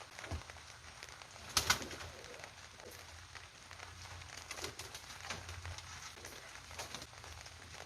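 Pigeons cooing in low, swelling murmurs, with scattered sharp clicks and rustles and a louder clatter about one and a half seconds in.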